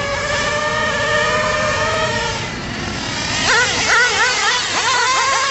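HPI R40 radio-controlled car's small nitro engine running at a high, steady pitch, then revved up and down in quick repeated blips over the last couple of seconds.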